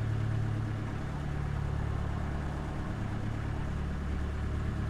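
Narrowboat's diesel engine running steadily while cruising, a low even hum that does not change.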